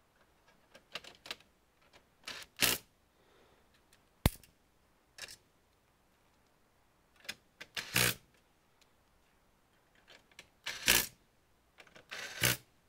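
Irregular clicks, taps and knocks of hands handling computer parts and tools while taking apart an all-in-one PC, with one very sharp click about four seconds in.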